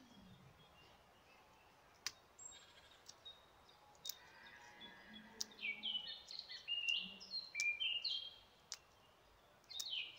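Dried corn kernels being rubbed and snapped off the cob by hand, giving faint scattered clicks. Partway through, a bird starts chirping with a quick series of short falling calls, louder than the kernels.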